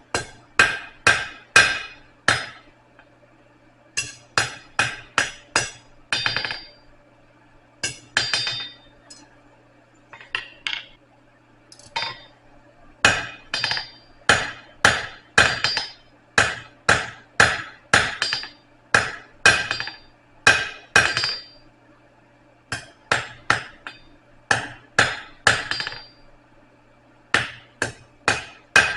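Blacksmith's hand hammer striking steel on an anvil while forging a hook: runs of ringing blows, about two a second, broken by short pauses.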